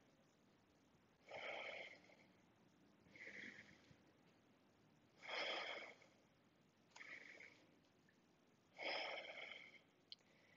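A woman's faint, slow breathing: three breath cycles about three and a half seconds apart, each a longer, stronger breath followed by a softer one. A small click near the end.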